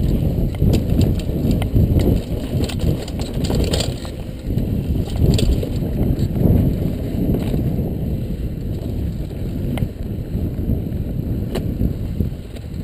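Mountain bike riding fast on a dirt singletrack: a steady rumble of tyres on the trail and wind on the microphone, with occasional sharp clicks and rattles as the bike jolts over bumps. The rumble eases off near the end.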